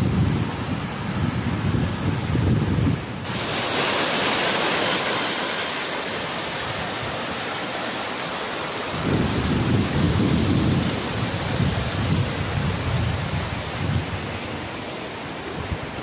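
Waterfall pouring over rock steps: a steady rush of water that turns brighter and fuller about three seconds in. Gusts of wind buffet the microphone at the start and again from about nine seconds in.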